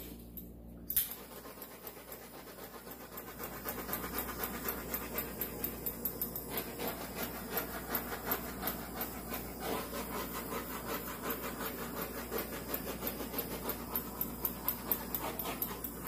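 Hand spray bottle misting over wet acrylic paint, pumped rapidly so the hiss pulses about three to four times a second. It starts about a second in and runs on.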